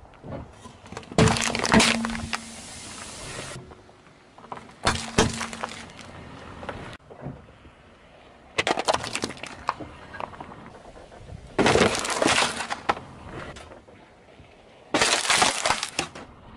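A car tyre slowly rolling over and crushing a series of objects in turn (a metal drink can, a plastic pudding cup, polystyrene foam food boxes), heard as five separate bursts of crunching and crackling a few seconds apart.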